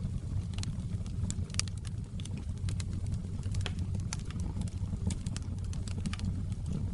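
Wood fire burning in a fireplace: many sharp, irregular crackles and pops over a steady low rumble of the flames.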